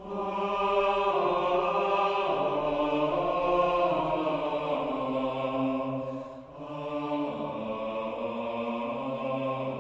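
Voices singing a slow, sustained chant, with long held notes that change every second or two and a short break about six and a half seconds in.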